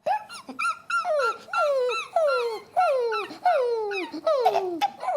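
A person imitating a puppy whimpering: a string of short, high yelps, each falling in pitch, about two a second.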